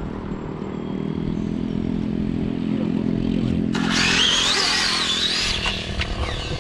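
Electric RC drag car's brushless motor whining high, its pitch wavering up and down as the throttle is worked, for about two seconds starting around four seconds in. Under it runs a steady low motor-like drone.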